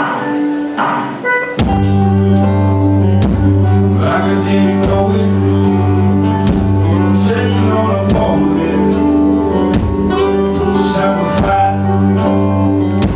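Live band music played through a concert PA: quiet chiming notes at first, then about a second and a half in the full band comes in with bass, sustained chords and steady drum hits.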